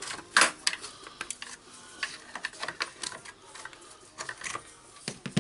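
Irregular clicks and taps of hard plastic and metal parts being handled and pulled out of a Hilti TE56 hammer drill's motor housing during disassembly, with a sharper click about half a second in and another near the end.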